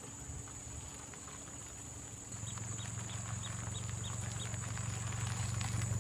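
A small engine running with a low, pulsing rumble that picks up about two seconds in and keeps building. A steady high whine runs underneath, and a quick run of seven short high chirps comes in the middle.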